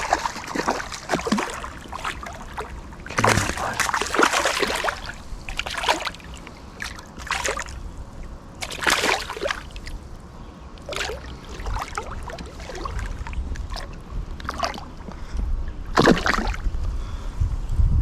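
Creek water splashing and sloshing in irregular bursts every second or two, several of them louder, as a person handles a fish and moves in shallow water.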